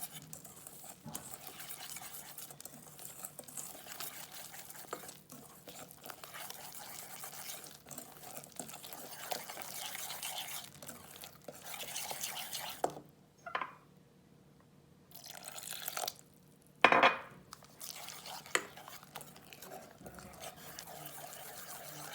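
Thick chickpea-flour and rice-flour batter being stirred in a bowl, a steady wet squelching and scraping with water being worked in. The stirring stops for about two seconds a little past halfway, and a single sharp knock comes shortly after it starts again.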